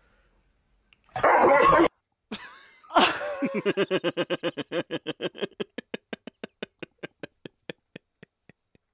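A dog lets out a short, loud, rough bark at being teased with a fake treat, in a mad huff. Then comes long, hearty human laughter, a steady run of "ha" pulses about four or five a second that slowly fade away.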